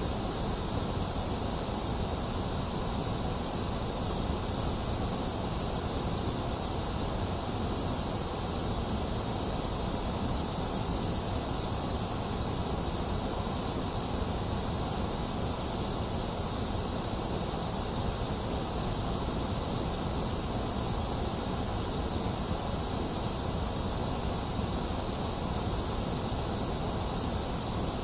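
Box fan running together with falling rain, making an even, unchanging hiss.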